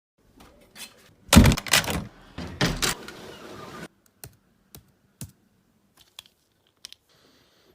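A quick cluster of loud knocks and thuds, followed by about six single sharp clicks spaced roughly half a second to a second apart, like keys or a hard object being tapped.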